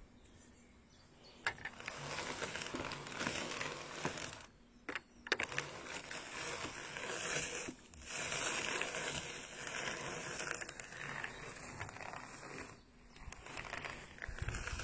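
Hand-cranked drum carder carding Leonberger dog undercoat: a steady brushing, rasping noise as the drums turn and their wire teeth work the fibre. It comes in several runs with short pauses between them, and a few sharp clicks come about five seconds in.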